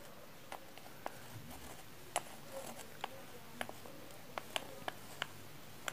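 Faint, irregular small clicks and taps of handling: a motorcycle cylinder block and a tube of gasket sealant being moved and turned in the hand while sealant is laid along the head gasket.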